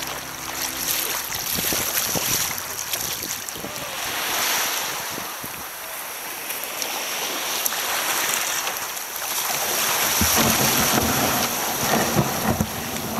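Small waves breaking and washing over shingle, with wind buffeting the microphone, heard from the bow of a sea kayak running in to land. From about ten seconds in, the kayak's hull grinds and scrapes up onto the beach pebbles.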